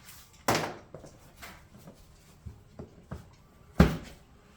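Knocks and clicks from parts and tools being handled during an ATV teardown: a few scattered light taps, with two louder knocks, one about half a second in and the loudest near the end.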